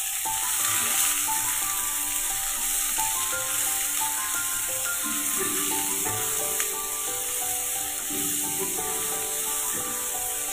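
Chopped vegetables and grated ginger-garlic sizzling steadily in hot oil in a kadai, a light stir-fry to take off the raw edge.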